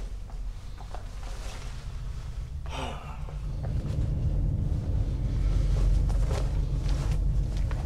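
A low, steady rumble that grows louder about halfway through, with a brief swish about three seconds in.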